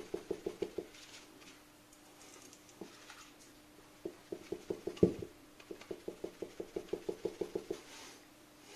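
Koni Special Active shock absorber knocking: a rapid run of light knocks, about seven a second, near the start, then a longer run from about four to eight seconds in with one heavier thump about five seconds in. The knock is the sign of a defective shock absorber.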